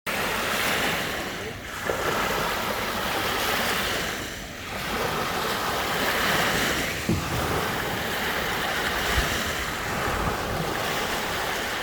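Rushing wind and lake water, with wind buffeting the microphone, swelling and easing every few seconds.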